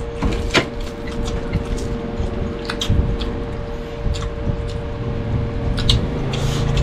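Close-up eating sounds: chewing and mouth noises with scattered sharp clicks, such as utensils on a plate, over a steady hum.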